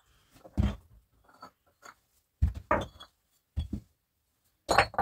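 Flat stones being handled and set down: about six knocks and gritty scrapes of stone on stone, the loudest near the end.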